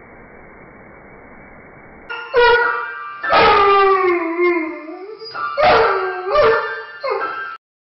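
A steady hiss for about two seconds, then an Irish setter howling in long, gliding notes in several bouts while its paws press the keys of an upright piano, with piano notes sounding under the howls. The sound cuts off suddenly near the end.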